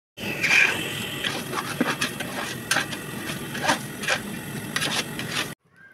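A metal spatula stirring chicken curry in a large steel pot: a continuous scraping, with sharp knocks as it strikes the sides of the pot. The sound stops abruptly near the end.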